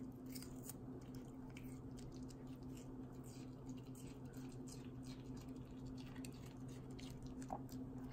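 Pomeranian puppy chewing pieces of red bell pepper: a quiet run of small wet crunches and mouth clicks, over a steady low hum.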